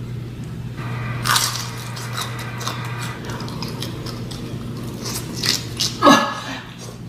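Close-up eating sounds of sauce-drenched fried chicken: wet chewing and smacking, with the fingers sucked clean of sauce, as many small mouth clicks. About six seconds in there is a short voiced exhale. A low steady hum lies underneath.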